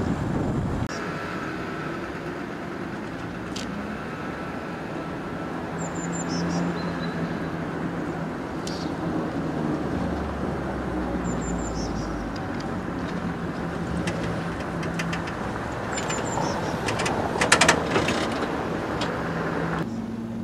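A historic tram running towards the listener on its track: a steady rumble with a low hum, and a cluster of clicks and rattles about three-quarters of the way through.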